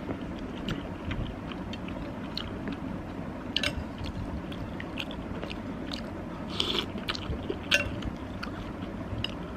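Close-miked chewing and mouth sounds of someone eating thick pasta soup: soft wet clicks and smacks scattered throughout, with a few sharper, louder clicks in the middle and latter part.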